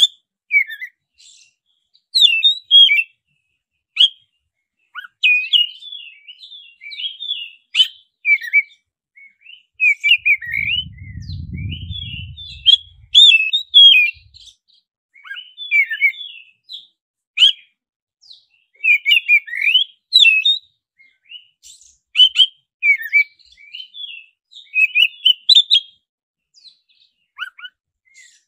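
Black-breasted oriental magpie-robin (kacer dada hitam) singing a long, varied song of short, quickly changing whistled phrases in rapid bursts with brief pauses. A faint low rumble sounds for a few seconds around the middle.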